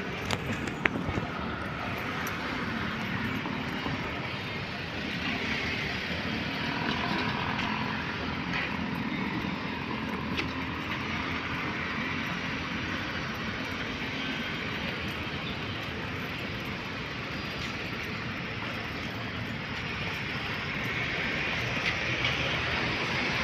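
Steady rushing of wind and street traffic heard from a moving bicycle, with a few light clicks near the start.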